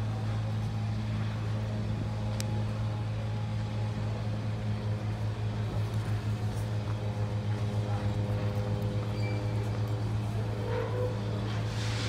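A vessel's engine running with a steady low hum that throbs at about four beats a second through the middle of the stretch.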